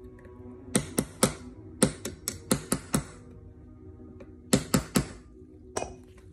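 Small hammer tapping a pin punch to drive a pin into an HK P30 pistol frame on a bench block: sharp taps in quick groups, three, then about six, then three more and a last single one.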